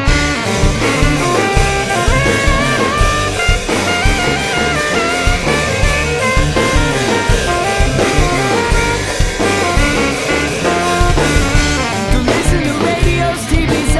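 Live rock band playing an instrumental break: drum kit and bass keep a steady beat under a lead instrument playing a sliding melody.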